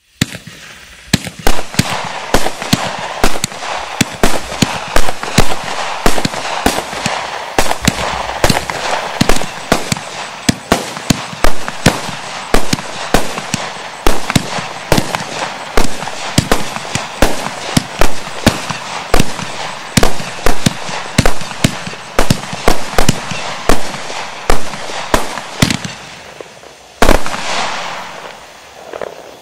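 Red Rhino Dragon Gold 500-gram, 30-shot consumer firework cake firing: a rapid string of sharp shots, about two a second, over a steady hiss. Near the end comes one louder last shot that trails off into a fading hiss.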